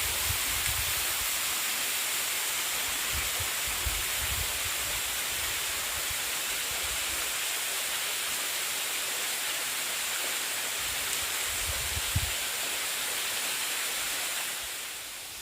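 Waterfall rushing in a steady, even hiss, with intermittent low rumbles underneath; it fades down near the end.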